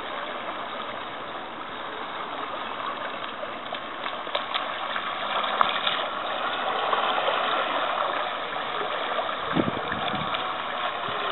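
Electric drive of an RC model superyacht running, an 18 V motor fed from an 11.1 V LiPo, heard as a steady whirring hiss mixed with the rush of its wake, getting a little louder about halfway through. A couple of low thumps come near the end.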